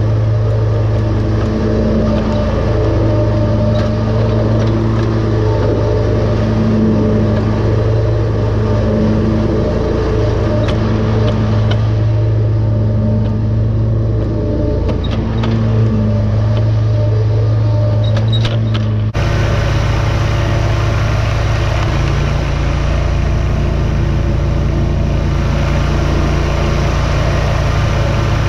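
Hustler X-One zero-turn mower's engine running steadily under load while mowing tall pasture grass, a loud continuous drone. About two-thirds of the way through the tone changes abruptly.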